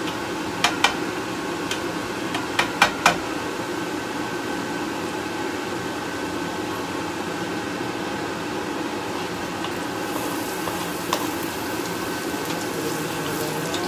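Minced garlic frying in oil in a pan, a steady sizzle, with a wooden spatula knocking against the pan several times in the first three seconds and once more about eleven seconds in. The sizzle grows brighter about ten seconds in as sliced onions go into the hot oil.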